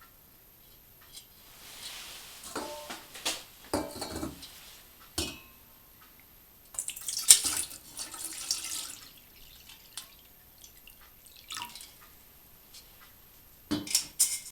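Water splashing and dripping, with light metallic clinks of a pot, some ringing briefly, at irregular moments.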